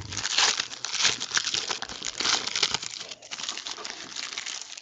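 Wrapper of a pack of trading cards crinkling as it is opened by hand, a dense run of crackles that stops just before the end.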